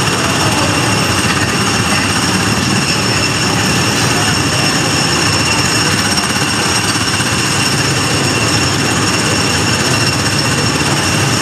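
Steady, loud machinery noise with several constant high-pitched whines over it, unbroken throughout.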